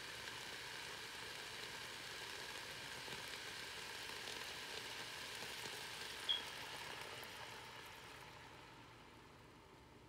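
Kale and vegetables sizzling in hot coconut oil in a pan just after a little water is added, a steady hiss that fades over the last couple of seconds. A short high chirp about six seconds in.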